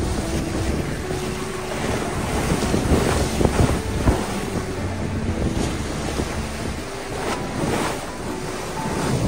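Rough sea waves breaking and splashing against a concrete seawall edge, with wind buffeting the microphone. The surf surges loudest around three to four seconds in.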